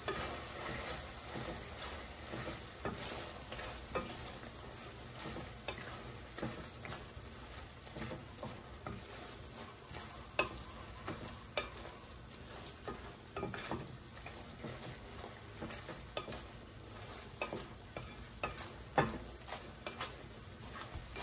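Clam adobo sizzling in a stainless steel pan as its sauce cooks down, while a wooden spoon stirs it with irregular scrapes and knocks against the pan.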